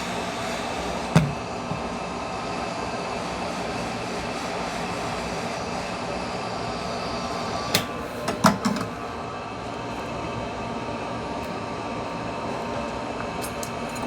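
Hot-air heat gun blowing steadily while the phone is heated to soften the adhesive, with a few sharp clicks of tools on the phone: one about a second in and a cluster around eight to nine seconds in.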